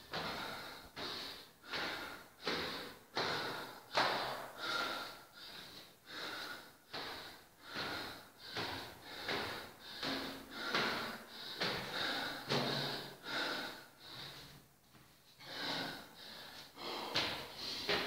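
A woman breathing hard from climbing stairs, panting in quick, regular rasping breaths about one and a half a second, with a brief lull near the end.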